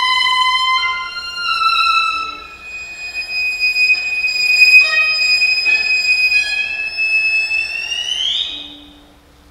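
Solo viola bowing slow, very high sustained notes, the last one held for several seconds before sliding sharply upward and fading away near the end.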